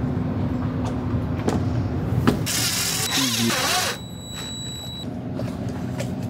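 Tool work at a fibreglass hatch: a few sharp clicks and knocks, then a cordless drill whirring for about a second and a half near the middle, with a thin high whine trailing after it. A steady low hum runs underneath.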